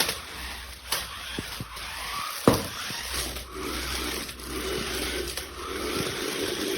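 Small electric motors of a toy remote-control stunt car whirring as its wheels spin, with a few knocks, the loudest about two and a half seconds in.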